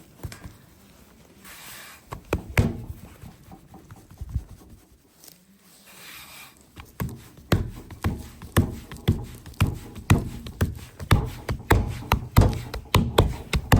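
A few scattered taps and two brief swishes, then, from about halfway through, steady soft thumps or pats at about two a second.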